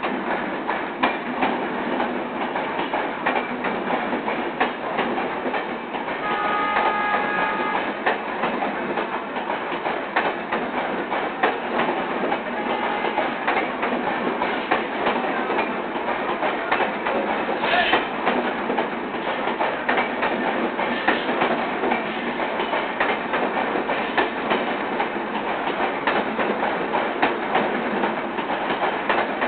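Passenger coaches of a departing express rolling past at low speed, their wheels clattering steadily over the rail joints. A horn sounds briefly about six seconds in, and there is a heavier clank near the middle.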